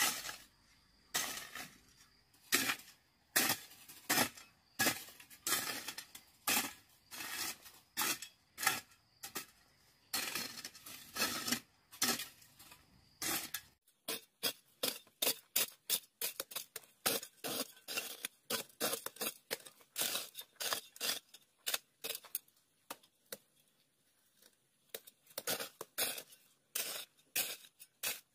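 An irregular series of knocks and clatters of hard objects, two or three a second, turning quicker and lighter about halfway through.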